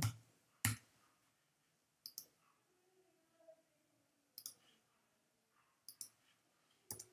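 A handful of single sharp clicks from a computer mouse and keyboard, spaced irregularly a second or two apart, over near silence.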